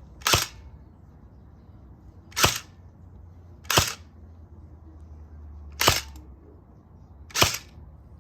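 Crosman Pulse R76 airsoft gun firing five single shots, each a sharp short crack, spaced unevenly about one and a half to two seconds apart.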